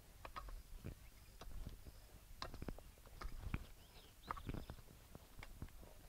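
Wooden-toothed hand rake (karasiya) dragged and knocked through lumpy soil, mixing compost into a nursery bed: irregular scraping thuds and knocks of wood against clods.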